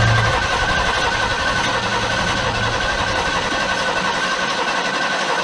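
Starter cranking the 1974 Ford F-350's 390 V8, the engine turning over steadily without catching. A steady whine runs through the cranking, which the owner puts down to the starter overheating.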